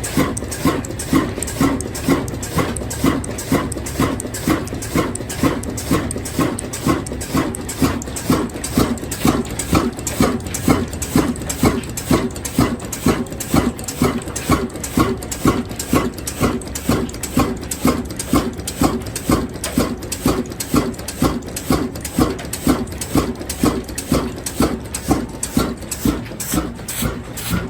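Diesel engine running slowly with an even, regular chug of about two beats a second.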